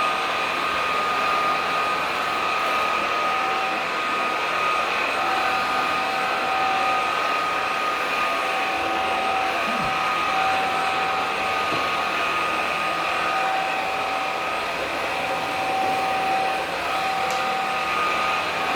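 WOMOW W20 cordless stick vacuum running steadily: a constant high motor whine over the rush of air.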